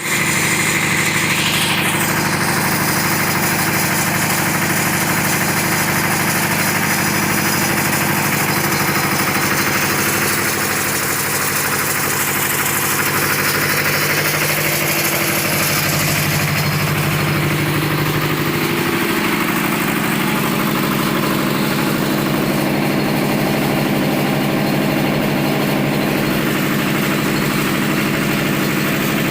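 A plastic scrap washing machine running with a loud, steady machine hum over a broad hiss; the low part of the hum shifts a little about two-thirds of the way in.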